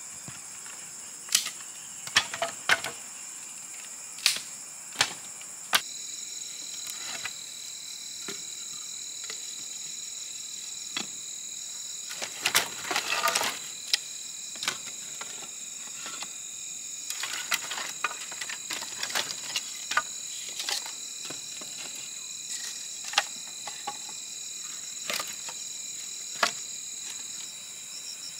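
Dry bamboo and wood pieces knocking together as they are laid on the ground and pushed into a clay oven's firebox: sharp wooden clacks, a few seconds apart, with a denser rattle about halfway. A steady high buzz of insects comes in about six seconds in.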